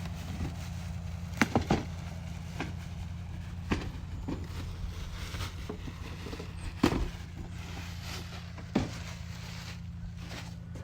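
A handful of sharp knocks and clunks from boxed parts being handled and moved, the loudest about seven seconds in, over a steady low drone like an idling engine.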